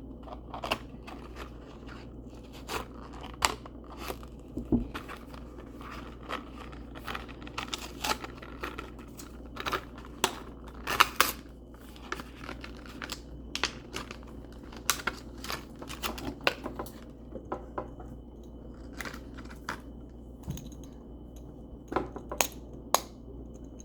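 Plastic packaging of a dimple spinner fidget toy being cut and torn open and handled, with irregular crinkles, crackles and sharp snaps, a cluster of them near the end.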